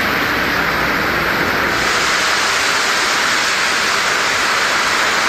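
Heavy rain pouring onto a road, a steady dense hiss that turns brighter about two seconds in.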